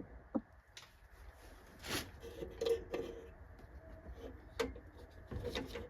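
Faint scattered clicks and knocks of a portable MIG welder's casing being handled and its side panel worked.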